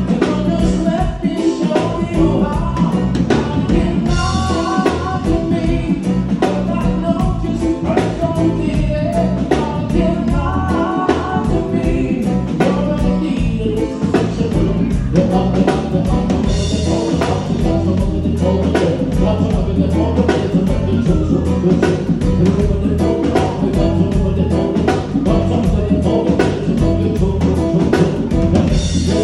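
Live band playing a song: a man singing over drum kit, electric guitar and keyboard, with a steady beat.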